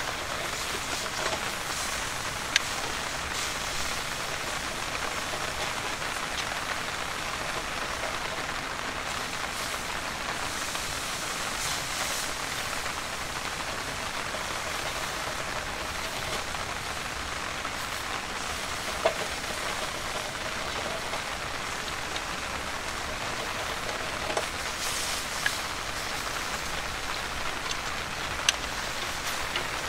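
Steady rain falling, an even hiss with a few sharp ticks scattered through it.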